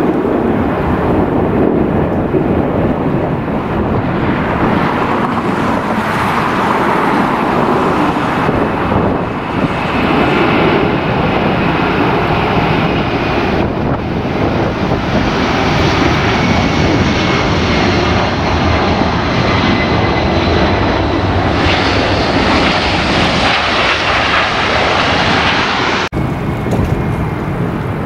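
Jet airliner engines running loudly: a steady rush with a faint high whine over it through the middle.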